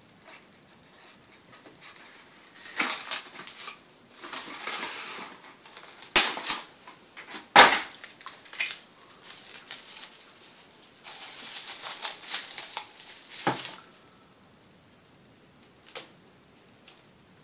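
Plastic crinkling and rustling in two stretches, with two sharp knocks in between (the loudest sounds), as plastic cups and their plastic covers are handled.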